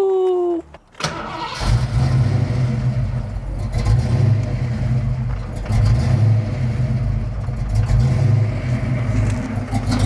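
Fox-body Mustang's 5.0 V8 cranking briefly and catching about a second in, then running at an unsettled idle, its level rising and falling, as the freshly reset engine computer tries to relearn the idle.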